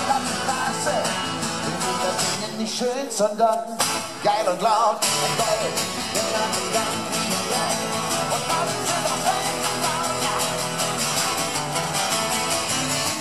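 Twelve-string acoustic guitar strummed in a steady rhythm. The strumming breaks off briefly about three seconds in, with a few single pitched notes, then picks up again.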